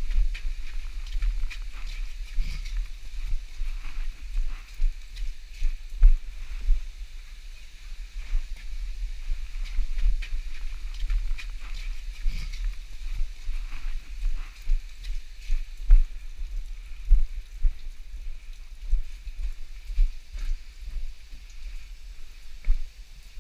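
Footsteps and knocks on icy, rocky ground, irregular and sharp, over a steady low rumble of wind buffeting a head-mounted action camera's microphone, with a faint hiss.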